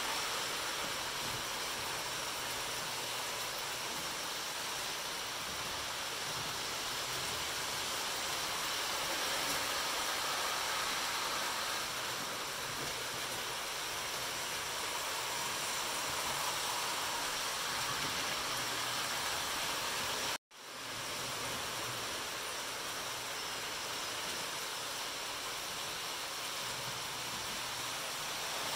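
Steady, even rushing background noise with no distinct events. It cuts to silence for an instant about twenty seconds in, then fades back up.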